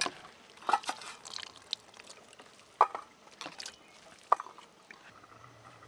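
Chopped pumpkin greens being washed by hand in water on a stainless steel plate: irregular wet splashes and drips, with a few sharp clinks against the steel.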